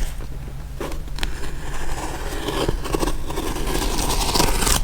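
Rustling and scraping of a parcel's paper and cardboard packaging being handled, with a few sharp clicks about a second in.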